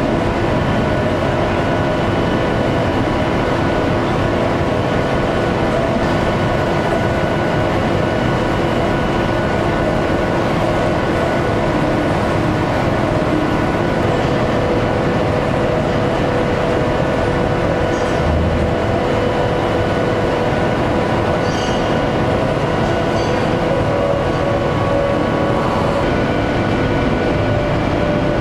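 Sugar beet processing machinery running steadily, with belt conveyors carrying sliced beet: a loud, even mechanical din with several steady humming tones over it and a few faint clicks in the second half.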